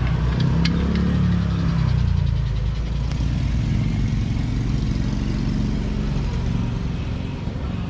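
A motor vehicle's engine running, rising in pitch and loudness about a second in, then holding steady and easing off near the end. A few light clicks come near the start.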